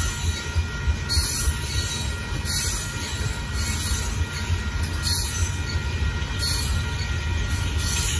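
Loaded limestone hopper cars of a slow-moving freight train rolling past with a steady low rumble. A thin high squeal is held over it, and a hissing clack comes from the wheels roughly once a second.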